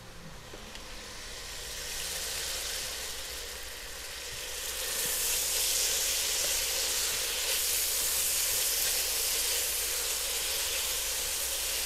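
Thin strips of beef sizzling in hot oil in a pot as they sear to take colour, turned now and then with tongs. The sizzle grows louder about two seconds in and again about five seconds in, then holds steady.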